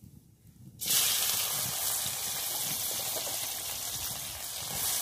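Chopped onion going into hot oil with fried cumin seeds in a wok: a sudden loud sizzle starts about a second in, then settles into steady frying.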